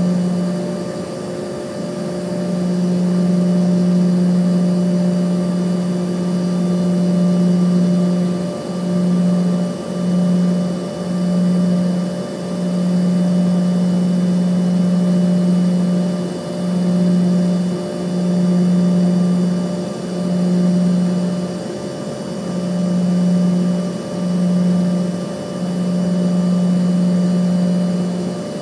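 Airliner's jet engines at low power heard from inside the cabin: a steady low hum with a few fainter higher tones. About a third of the way in, the hum starts to swell and fade roughly every second.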